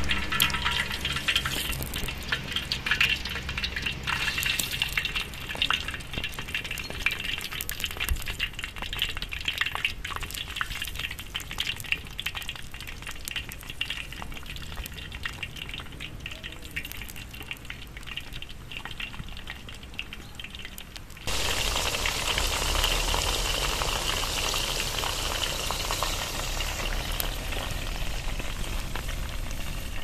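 Sliced vegetables sizzling and crackling in hot oil in a wide pan over a wood campfire. About 21 seconds in, the sound turns suddenly to a denser, louder sizzle.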